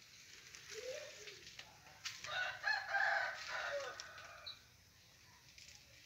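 A rooster crowing once, a call of about two seconds starting about two seconds in and dropping in pitch at the end, with a shorter, fainter call just before it.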